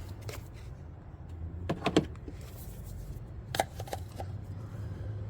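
A few knocks and clatters of hard objects being handled, loudest about two seconds in with a few lighter clicks later, over a steady low hum.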